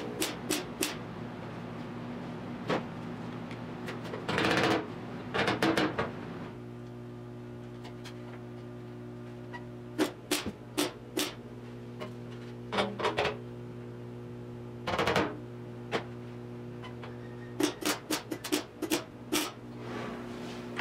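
MIG welder tack- and stitch-welding a patch into thin steel body sheet: two longer bursts of arc crackle, then a run of short tacks in quick succession, with a steady hum between them.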